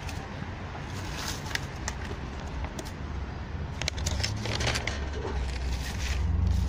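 Crackling and rustling of a plastic bag and dry leaves with scattered sharp clicks as wet cat food is scooped out onto a plate. From about four seconds in, the low hum of a motor vehicle's engine comes in and grows louder.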